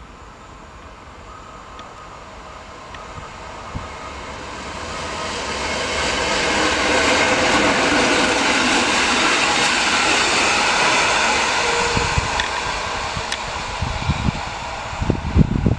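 EN57 electric multiple unit passing at speed: its running noise on the rails builds, is loudest as it goes by about halfway through, then fades as it moves away. Near the end, low gusts of wind buffet the microphone.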